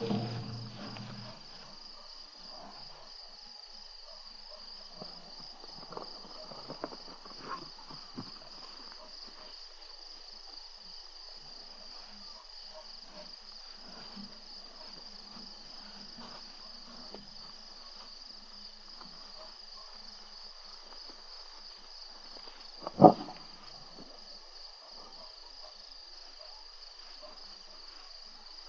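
Evening insects trilling steadily at a high pitch, as a cricket chorus does. Soft scattered knocks and rustles come through, and one sharp, loud knock about 23 seconds in.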